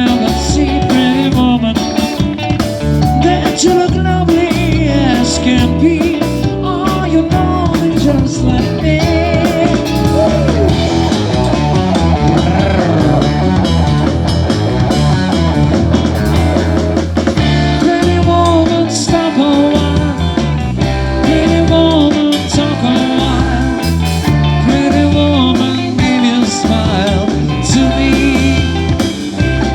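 A live band playing loud rock and roll with a steady beat.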